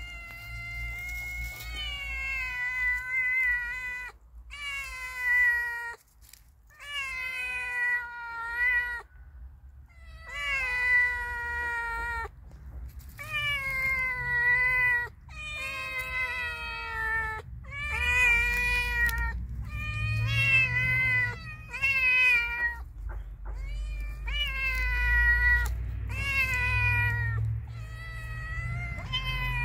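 A calico cat and a brown tabby cat meowing again and again: a long run of drawn-out meows, one after another with short gaps between.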